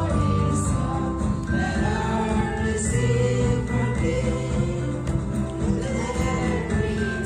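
A small mixed group of children and teenagers singing a Christian hymn together, with acoustic guitar accompaniment.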